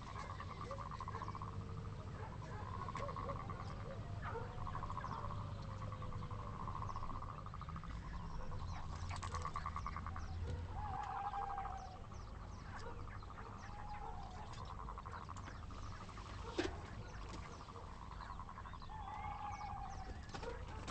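A chorus of frogs calling at night: rapidly pulsed croaking trills, each about a second long, repeating over and over, over a low steady hum. One sharp click about two-thirds of the way through.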